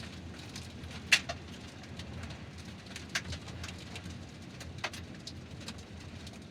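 Car tyres rolling over gravel: a steady low rumble with stones crunching and popping under the wheels, the sharpest pop about a second in and others near three and five seconds in.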